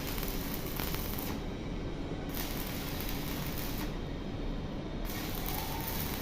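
Electric arc welding: the arc hisses and crackles in three runs, stopping about a second in, striking again for nearly two seconds, and starting once more about five seconds in.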